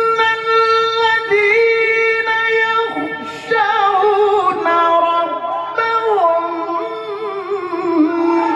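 A man reciting the Quran in the melodic tilawah style through a microphone. He holds a long high note, takes a short break about three seconds in, then sings winding, ornamented phrases.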